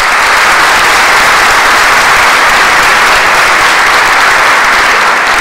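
Audience applauding: dense, loud, steady clapping that begins just before and keeps up evenly.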